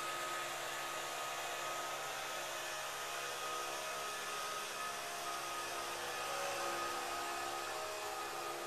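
Leaf blower running with a steady whir, swelling slightly about six or seven seconds in.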